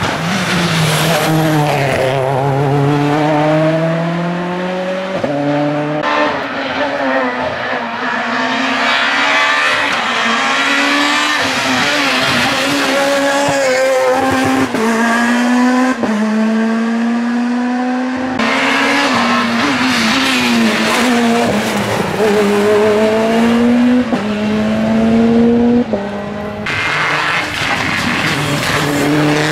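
Rally cars at full throttle, several in turn: each engine climbs steadily in pitch through the gears, with quick drops at each upshift before pulling again.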